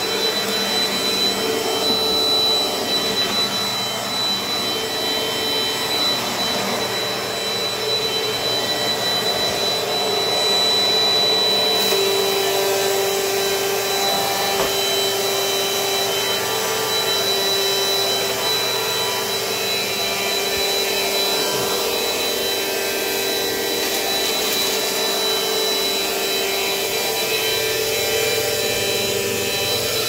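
Dirt Devil Dynamite corded stick vacuum running steadily, a continuous motor whine and rush of air as it is pushed over a wood floor.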